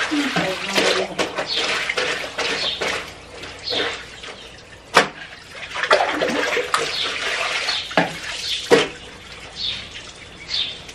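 Clothes being scrubbed by hand with soap and water on a lavadero washboard sink: repeated wet rubbing strokes, with a few sharp knocks, the loudest about five seconds in and near nine seconds.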